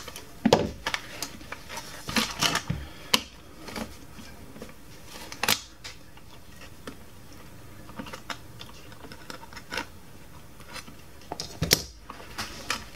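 Scattered sharp clicks and knocks of a screwdriver prying at a toy's plastic mechanism housing to free a retaining tag, along with hard plastic parts being handled. The loudest knocks come about half a second in and again near the end.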